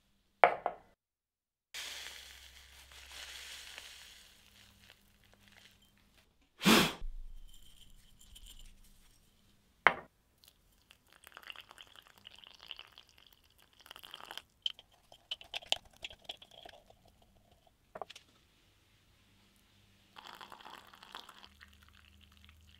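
Yerba mate being prepared in a ceramic gourd on a steel table: dry yerba leaves rustling in the gourd, a sharp knock and several clinks of the gourd and a metal straw against the steel, then hot water trickling from a gooseneck kettle onto the leaves in two spells.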